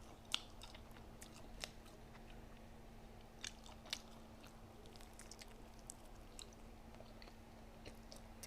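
Close-up mouth sounds of a person chewing and biting food, quiet and wet with a few sharp crunches, over a faint steady hum.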